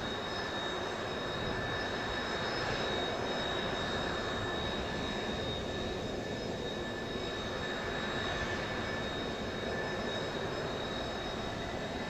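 Jet engines of a Kawasaki T-4 trainer and F-4 Phantom fighters idling on the ground: a steady jet whine with several high tones over a broad rush.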